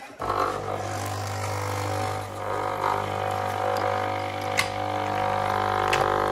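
Melitta CI Touch coffee machine's water pump running with a steady, loud humming drone that starts abruptly, pumping water through the machine during a leak test after a flow meter replacement. A few sharp clicks sound in the second half.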